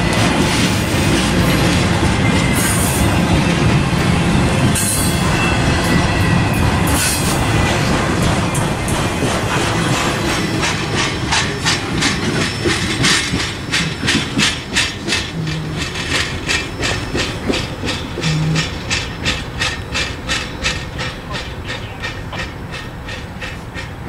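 Double-stack intermodal freight train rolling past: steel wheels on rail give a loud, steady rumble, then a regular run of clickety-clack clicks over the rail joints as the last well cars roll away and the sound fades.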